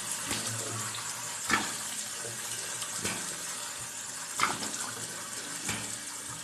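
Water running steadily from a tap or shower, an even hiss, with four brief louder sounds spaced about a second and a half apart.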